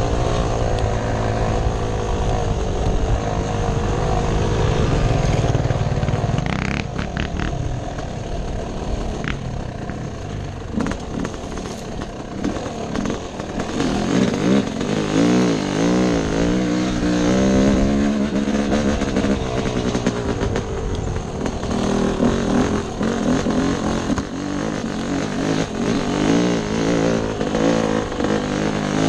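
Yamaha dirt bike engine running under the rider, revving up and falling back again and again as the throttle is worked over rough trail, with a few sharp knocks in the first half.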